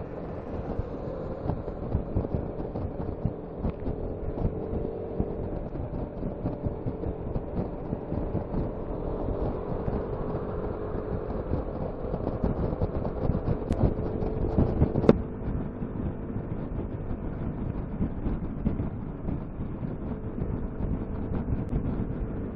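Piaggio MP3 LT 500 scooter's single-cylinder engine running steadily at road speed, with wind noise on the microphone. A single sharp click about fifteen seconds in.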